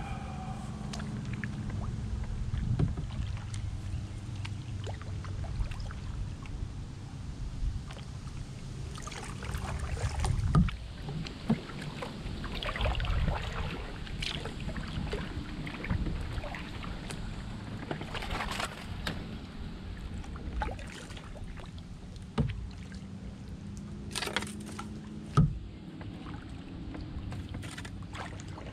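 Canoe paddling: a paddle dipping and splashing in the river water at irregular intervals, over a steady low rumble.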